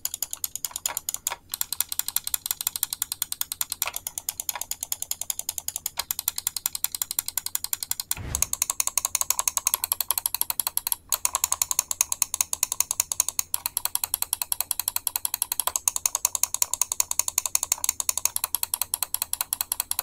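Newly fitted Kailh GM Red micro switches in a Logitech G Pro Wireless mouse's main buttons, clicked in rapid succession as a sound test: a fast, even train of sharp clicks, many a second, with a short break about eight seconds in.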